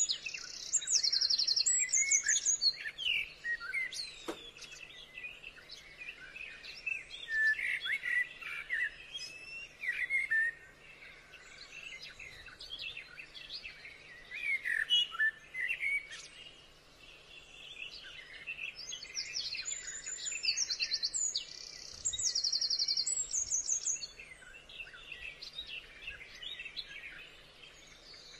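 Several birds singing and calling together: many short chirps and whistled notes overlapping, with a fast, high trill near the start and again about two-thirds of the way through.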